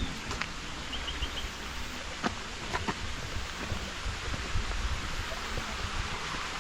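A steady outdoor rushing noise with a fluctuating low rumble, and a few faint clicks and a short run of high ticks about a second in.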